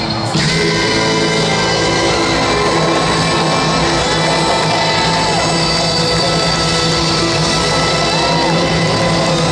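Live rock band with a horn section playing: saxophone, trumpets, electric guitars and drums going together at full volume. It comes through the stadium PA and is recorded from the stands.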